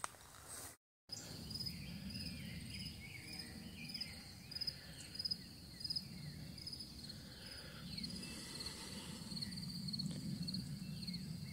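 Insects chirping, cricket-like: a faint, high, pulsed chirp repeating steadily a little under twice a second, with fainter short calls sliding down in pitch around it.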